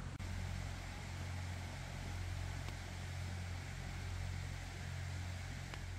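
A steady low hum under an even hiss, with two faint ticks.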